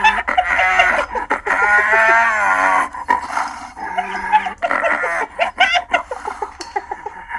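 Hyena calling: a run of high, wavering calls broken up by quick stuttering pulses.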